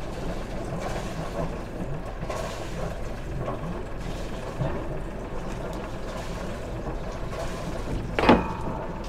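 A sailboat's inboard diesel engine idling steadily at the dock while the lines are cast off. About eight seconds in there is one short, loud sweeping sound.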